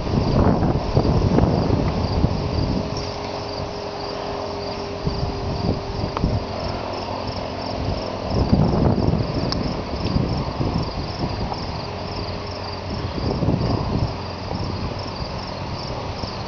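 Crickets chirping steadily in a fast, even pulsing rhythm, with gusts of wind buffeting the microphone that come and go. A faint steady tone sounds for several seconds near the start, then fades out.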